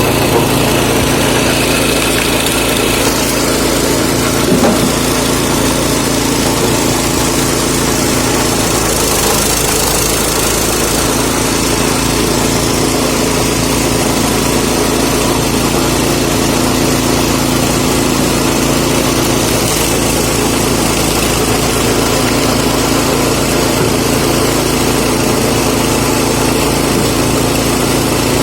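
Lifan 6.5 hp single-cylinder petrol engine of a homemade screw-cone log splitter running steadily, with one brief knock about four and a half seconds in.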